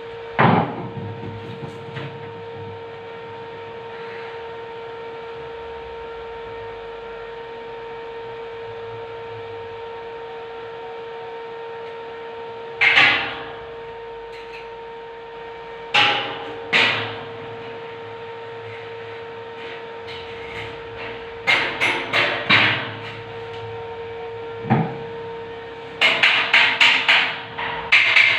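Hammer striking steel hollow tube: a few single knocks, then short quick runs that get denser near the end. The knocks sound over a steady electrical hum.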